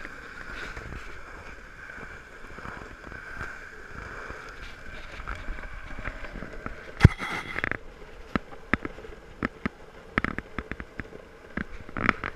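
Longboard's urethane wheels rolling steadily on a concrete path, with a sharp knock about seven seconds in and scattered clicks and taps after it.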